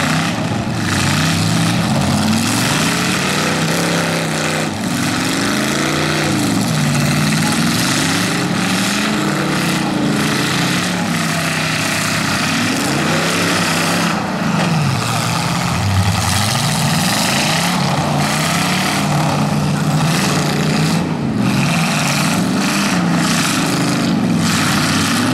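Several demolition-derby V8 engines revving up and down over and over as the cars reverse and charge. Now and then a hard crash of car bodies smashing into each other cuts through.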